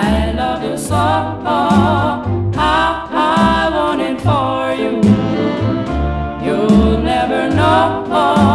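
Rhythm and blues record: several voices sing sustained harmonies with vibrato over a regular bass beat.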